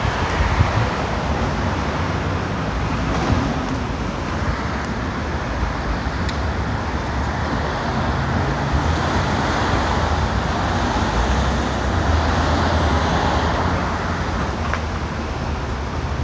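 Steady city street traffic noise from cars passing on the boulevard, a little louder around the middle.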